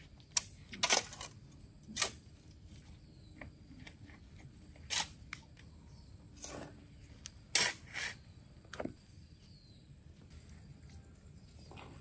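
A series of short, sharp knocks and scrapes at irregular intervals, about eight over twelve seconds, the loudest about half a second in and near the middle.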